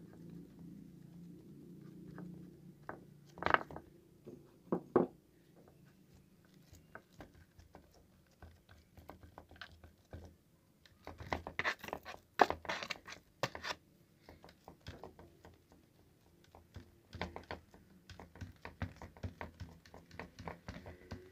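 Oiled fingers pressing and flattening soft brioche dough balls on a metal baking tray: scattered soft taps and knocks, with a busier run of them about halfway through and again near the end.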